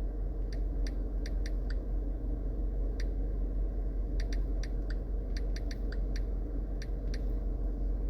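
Irregular light key clicks, about seventeen in eight seconds and some in quick runs, typical of typing on a keyboard. A steady low hum runs underneath.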